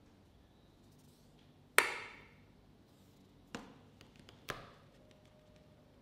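A sharp knock on a tabletop that rings briefly, followed by two lighter knocks about a second apart and a few faint ticks, as an aluminium drink can and a hand are moved about on the table.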